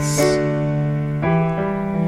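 Worship-band keyboard holding sustained chords between sung lines of a contemporary worship song, moving to a new chord a little over a second in.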